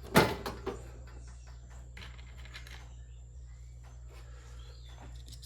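A sharp knock just after the start, then faint scattered clicks and rubbing as plastic housing parts of a mini ice maker are worked into place, over a steady low hum.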